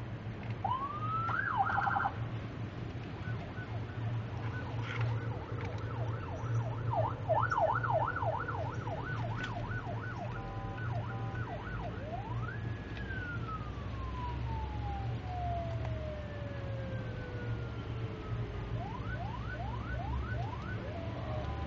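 Electronic vehicle siren with Whelen-style tones, cycling through several patterns: a fast up-and-down warble, then one quick rise and a long slow falling wail, then quick rising chirps about two a second near the end. A steady low hum runs underneath.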